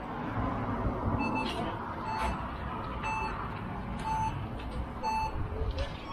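Orienteering start clock beeping a countdown to the next start minute: five short, identical beeps about a second apart, over steady background noise.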